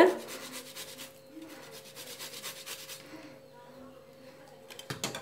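A boiled, peeled potato rubbed back and forth over a stainless steel hand grater: soft, rapid rasping strokes that stop about three seconds in, followed by a few light clicks near the end.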